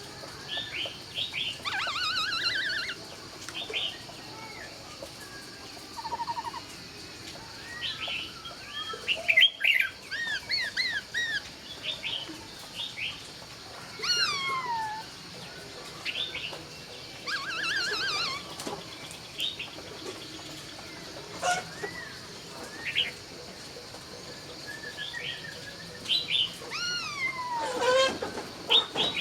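Laughingthrush singing a long, varied song of loud whistled phrases that glide up and down in pitch, coming in bursts with short pauses between them.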